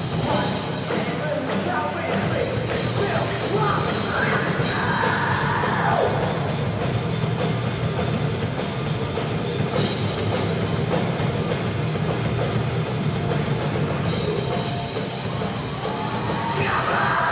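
Live rock band playing through amplifiers: electric guitars and a drum kit, with a voice coming over the band around four to six seconds in and again near the end.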